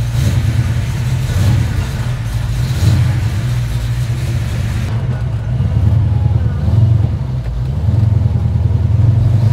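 Freshly rebuilt Pontiac V8, a 400 stroked to 470 cubic inches, running at low revs as the car pulls away, heard from inside the cabin. A steady low rumble that swells and eases a few times.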